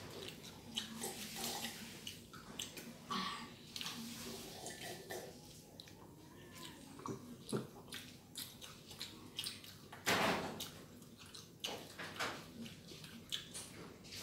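Close-up eating sounds: wet chewing and lip smacking, with many small clicks and squishes as food is picked up by hand. One louder noisy burst comes about ten seconds in.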